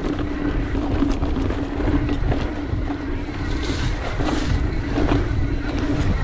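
Mountain bike riding fast down a dirt trail: wind on the microphone and tyre rumble over the ground, with knocks and rattles from the bike and a steady buzzing tone that breaks off briefly a few times.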